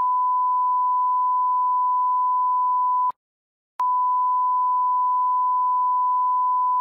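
Television broadcast test-signal reference tone: a steady, pure 1 kHz tone. It cuts off about three seconds in and comes back under a second later.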